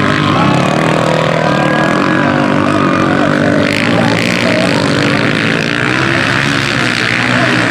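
Motocross dirt bike engine revving hard, its pitch rising and falling with the throttle.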